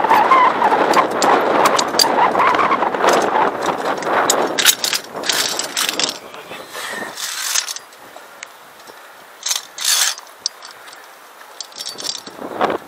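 Via ferrata carabiners clicking and clanking on the steel safety cable and its anchor as they are moved along and clipped past, a string of sharp metal clicks. For the first few seconds there is loud rustling and rubbing close to the microphone.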